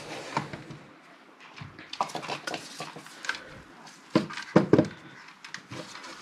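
Clicks and knocks of handling: multimeter probes set down and the open bench power supply's sheet-metal case picked up and turned on the workbench, with a few louder metallic knocks a little after four seconds in.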